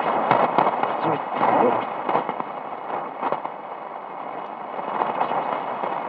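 Shortwave static and crackle from the loudspeaker of a Drake 2B tube communications receiver tuned in AM across the 40-metre broadcast band. A weak broadcast station is faintly audible under the noise because propagation is poor.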